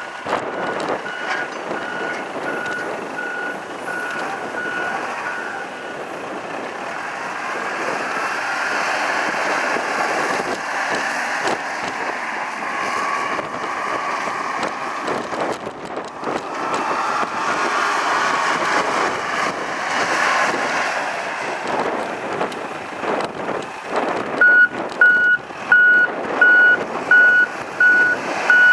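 Caterpillar IT18B wheel loader's diesel engine running as it drives, with its reverse alarm beeping steadily at about two beeps a second for the first few seconds and again, louder, over the last four seconds while it backs up.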